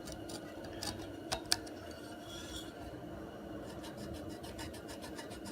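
Light clinks and rubbing of a metal template being slid along a steel baler bar while cut marks are made on it, with a few sharp clicks about a second in. A steady low hum underneath.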